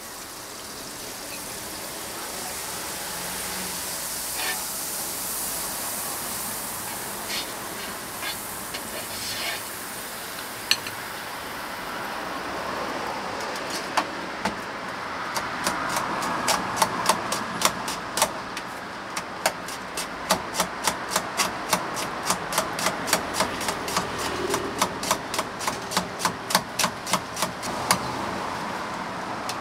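Knife chopping on a cutting board, most likely for toast filling: sharp, regular strokes about three a second, starting about halfway through, over a steady hiss.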